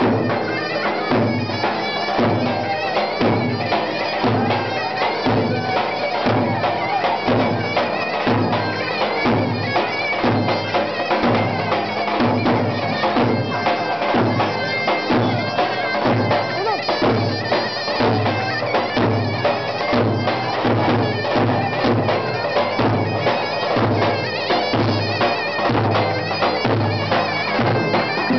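A davul drum beating a steady dance rhythm under a loud, reedy zurna melody: live davul-zurna music for a halay line dance.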